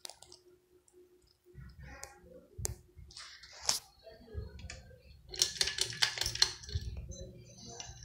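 A 2001 Harbor Breeze Ocracoke ceiling fan running, with a faint steady motor hum and irregular clicks and rattles, thickening into a dense run of clicking about five and a half seconds in. A low rumble joins about halfway through.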